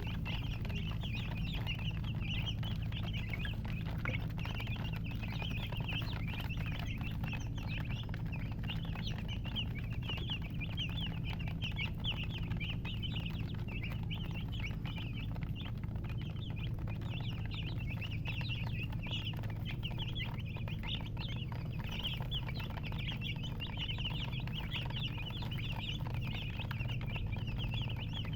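A group of baby chicks peeping continuously, many short high-pitched chirps overlapping without a break, over a steady low hum.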